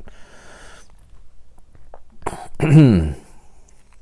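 A man's breath out, then about two and a half seconds in a quick breath and a short wordless voiced sound that falls steeply in pitch: a thinking vocalisation during a word-finding pause.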